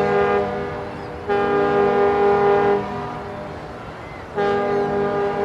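A deep horn sounding several notes together, blowing long, steady blasts. One blast ends just after the start, a second lasts about a second and a half in the middle, and a third begins near the end.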